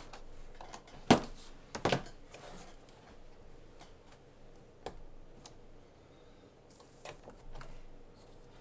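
Small tools and RC car parts being handled on a workbench. There are two sharp clicks about one and two seconds in, then a few fainter ticks and taps.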